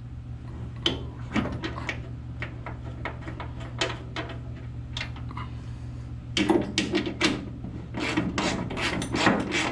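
Hand-tool work on a steering box mounting bolt: metal clicks and scraping as the bolt is threaded in and worked with a wrench, sparse at first and getting busier about six seconds in, over a steady low hum.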